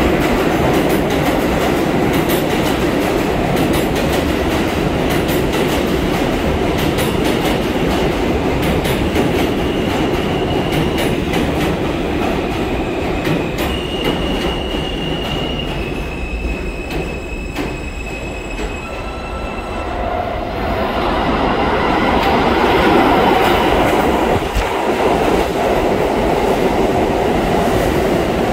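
R160 New York subway trains running through an underground station at speed: a steady rumble of steel wheels on rail with rail-joint clicking and a thin high whine partway through. The sound eases, then builds again from about three-quarters of the way in as a second train passes on the other track.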